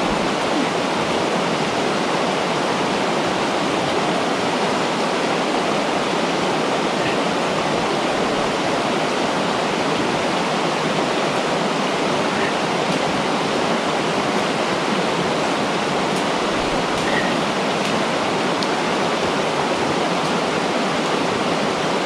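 Fast-flowing stream rushing over rocks in a shallow riffle, a steady, even rush of water.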